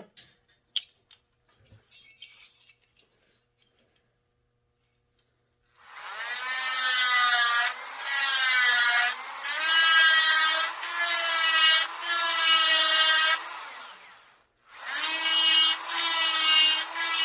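High-speed rotary grinder porting a McCulloch S550 chainsaw cylinder, after a few light clicks. It runs in short passes of one to two seconds, its whine dipping in pitch each time the bit bites into the port and recovering as it eases off, with a brief stop near the end.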